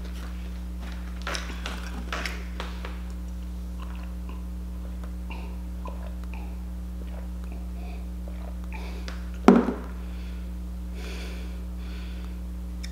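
Quiet eating and drinking sounds: small mouth clicks and smacks while chewing and sipping milk, over a steady low hum. One loud thump about nine and a half seconds in is the loudest sound.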